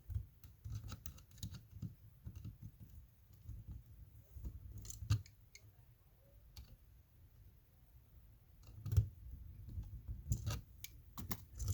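Needle-nose pliers clicking and scraping as a wire end is bent into a hook to go around an outlet's screw terminal: irregular small clicks with low handling noise, the loudest about nine seconds in.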